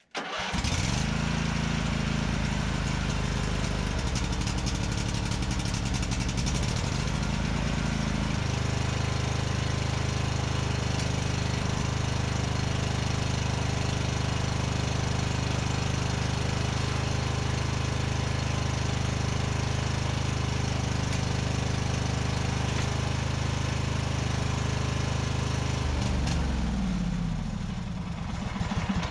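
Craftsman LT1000 riding mower engine starting with the choke on, rising to speed within the first second and running steadily; its note shifts about eight seconds in, then it winds down and stops near the end.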